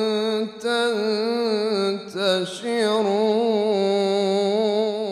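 A man reciting the Quran in melodic tajweed style, holding long, wavering, ornamented notes. The verse closes on a drawn-out "tantashirun".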